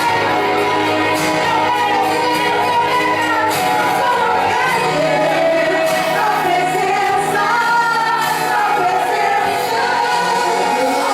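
Worship music with singing, steady throughout.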